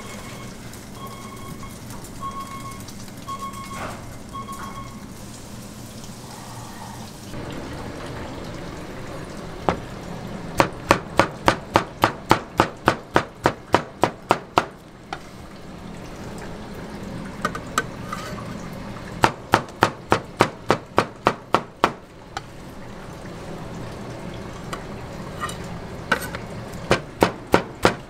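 A knife chopping through a rolled egg omelette (gyeran-mari) onto a cutting board, the blade knocking the board in quick even runs of about four strikes a second, three runs with pauses between. In the first few seconds, before the chopping, there is a steady hiss with a short beep repeating about once a second.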